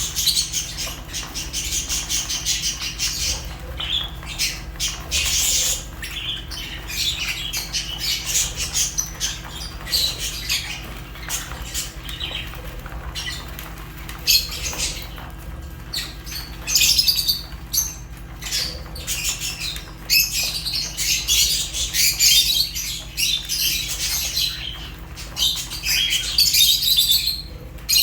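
Several lovebirds chirping and squawking without pause, in high, shrill overlapping calls, over a faint steady low hum.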